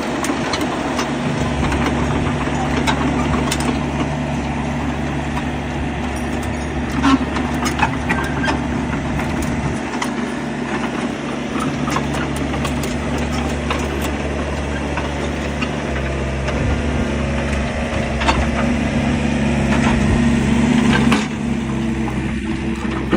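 Diesel engine of a Yanmar VIO55 mini excavator running, its note shifting up and down several times as the engine speed changes. A few knocks come through, and the engine is loudest just before it drops back near the end.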